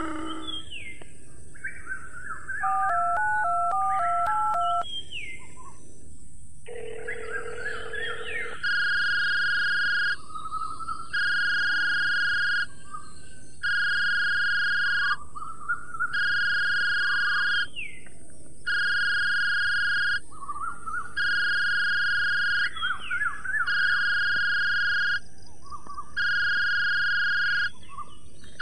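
Birds chirping in short gliding calls, with a brief warbling two-note pattern near the start. From about a third of the way in, a steady high beep repeats about eight times, each lasting about one and a half seconds with a short gap between.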